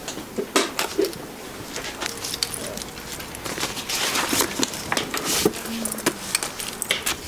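Handling sounds from kiss-lock bags being inspected: irregular light clicks and knocks from the metal clasp frames, with fabric rustling between them.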